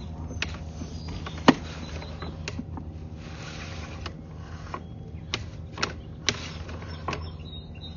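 Sewer inspection camera rig: a steady low hum with irregular sharp clicks and knocks as the push cable and camera head are worked through the pipe.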